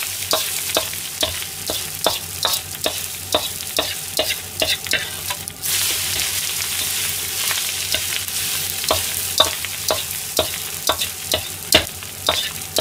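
Fried rice with green onion sizzling in a wok while a metal ladle scrapes and knocks against the pan as it is stir-fried, two or three strikes a second. There is a short lull in the stirring about five and a half seconds in.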